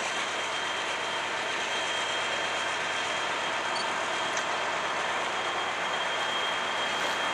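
Freight train's loaded pipe flatcars rolling past on the track: a steady rolling noise of steel wheels on rail, with a thin steady high tone running through it.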